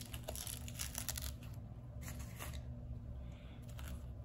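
Faint rustling and scraping of a 1/6-scale action figure's parts and costume being handled. It comes in a few short bursts in the first second and a half and again about two seconds in.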